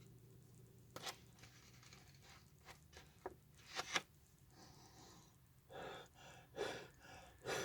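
Faint clicks and crinkles from a thin plastic face shield being handled, then three short breaths blown out behind it, testing whether the shield fogs up.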